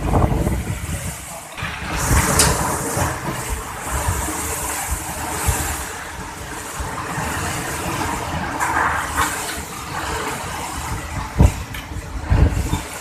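Typhoon wind and rain: a loud, rushing noise with deep rumbling, swelling and easing in gusts, with stronger surges about two seconds in and near the end.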